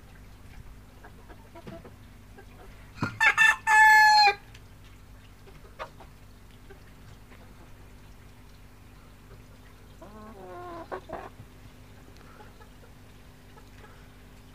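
A young Appenzeller cockerel crows once, about three seconds in: a few short notes, then one longer held note. A softer, lower chicken call follows about ten seconds in.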